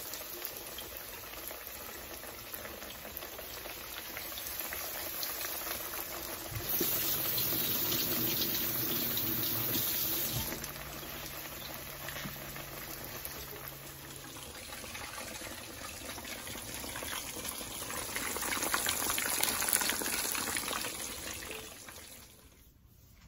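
Breaded catfish fillets sizzling and bubbling in hot frying oil in a skillet. The frying noise is steady, swells louder twice, and fades out near the end.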